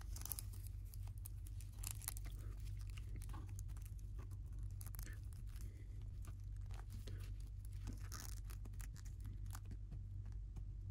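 Small plastic parts of an action figure clicking and rubbing as it is handled and its plastic armor harness is worked back onto it: scattered faint ticks and scrapes over a steady hum.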